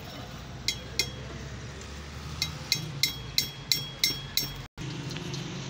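Metal tool tapping against the steel cylinder of a hydraulic bottle jack: sharp metallic clinks with a short ring. Two single taps come first, then a run of about seven at roughly three a second.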